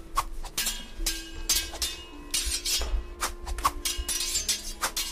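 Prop swords and shields clashing in a mock stage sword fight: about a dozen irregular, sharp clacking strikes.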